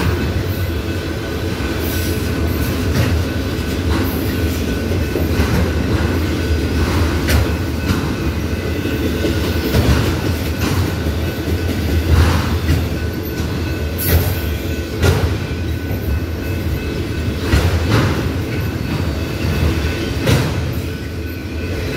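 Empty autorack freight cars rolling past: a steady low rumble with wheels clacking over rail joints every second or two, and a faint steady high whine above it.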